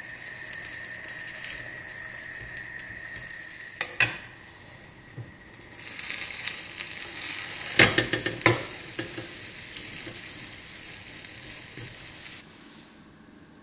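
Egg mixture sizzling in a rectangular egg pan as a rolled omelette is turned and rolled up with a silicone spatula. There are sharp knocks of the spatula against the pan about four seconds in and again around eight seconds in, and the sizzling stops suddenly near the end.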